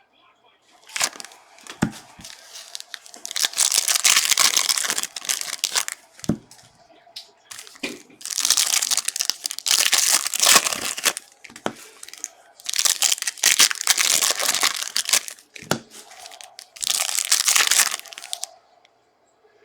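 Plastic packaging of a box of trading cards crinkling and tearing as it is opened by hand, in four long rustling bursts with brief pauses between them.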